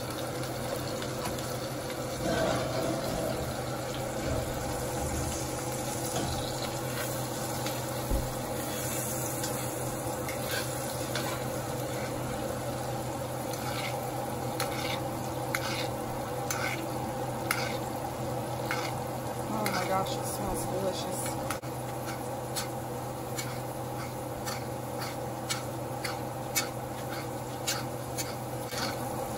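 Ribeye steaks sizzling in butter in a cast iron skillet, with a metal spoon basting them and clicking against the pan. The clicks come thick and fast, several a second, through the second half.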